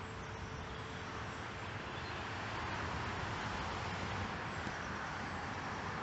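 Steady rushing outdoor ambience, swelling slightly in the middle, with no clear single event.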